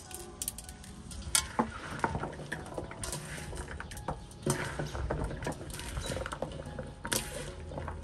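Hands tossing and mixing freshly chopped cabbage, carrots and peppers in a large aluminium pot: irregular crunchy rustling and crackling with frequent sharp clicks, busier from about a second in.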